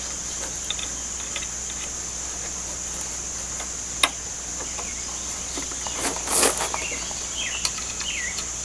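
Steady high-pitched chirring of insects, with a sharp click about four seconds in and a short scraping rustle around six seconds in as the ladder tray and its strap are handled.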